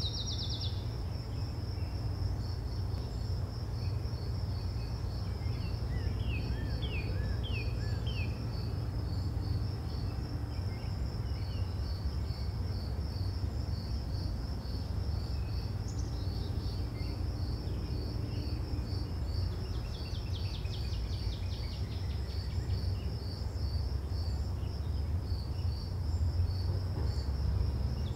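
Outdoor nature ambience: an insect chirping in a steady, rapid, high-pitched pulse, with a few short high sweeping calls now and then. A constant low rumble runs underneath.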